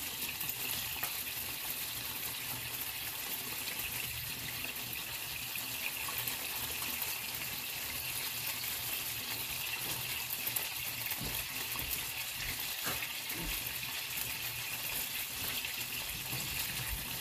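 Longganisa sausages sizzling steadily as they fry in a nonstick pan, with a few light clicks of metal tongs and a knife against the pan.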